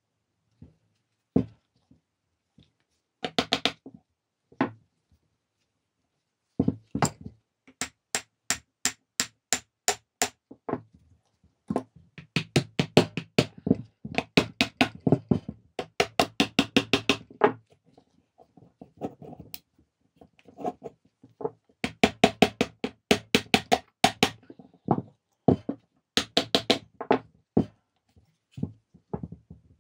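Hammer tapping repeatedly on an old Dacia alternator's metal housing, in quick runs of about four or five blows a second separated by short pauses. Each blow rings briefly.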